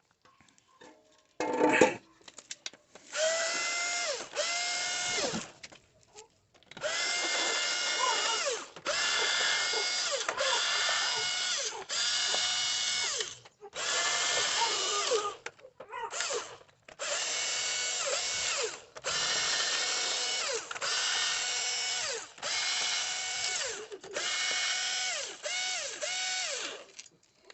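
Cordless power screwdriver run in over a dozen short bursts of a second or two, each ending with the motor's whine winding down, as it unscrews the motorcycle's clutch cover bolts one after another.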